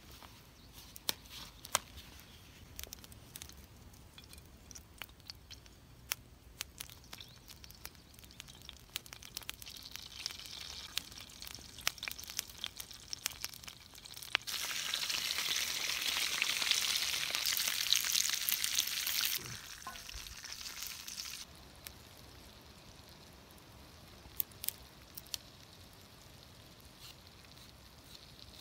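Bluegill frying in a small cast iron skillet over wood coals: a sizzle with scattered pops and crackles, swelling to a loud, dense sizzle for about five seconds around the middle, then dying back to faint crackling.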